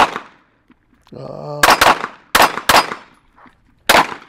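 Sig Sauer M18 9mm pistol firing about six shots at an uneven pace, two of them in quick succession. Each sharp report trails off in a short echo.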